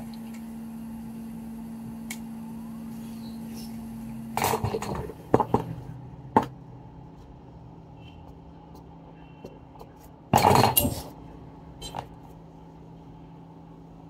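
Short clinks and clatters of small metal tools being handled and set down on an electronics repair bench, loudest about ten seconds in. A steady low hum of bench equipment runs underneath and changes note about five seconds in.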